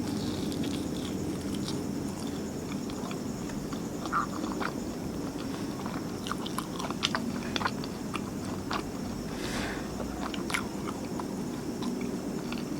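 Close-miked chewing and biting of martabak manis (terang bulan), a thick sweet pancake, with scattered small mouth clicks that come thickest in the second half.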